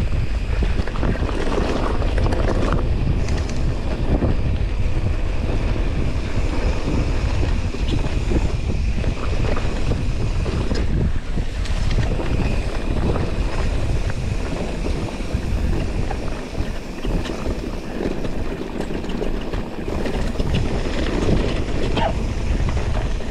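Wind buffeting the microphone of a riding mountain biker's camera, heard as a steady heavy rumble, with scattered knocks and rattles from the bike on a rough dirt trail.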